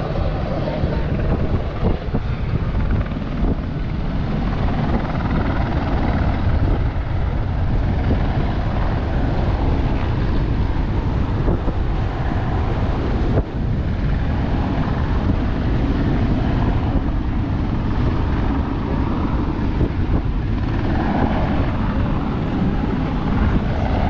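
Steady low rumble and wind noise on the open deck of a ferry under way.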